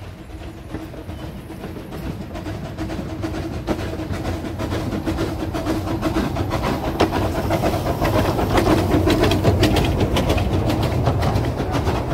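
Narrow-gauge steam locomotive drawing its coaches toward and past the listener, growing steadily louder. From about halfway in, the wheels click sharply and often over the rail joints.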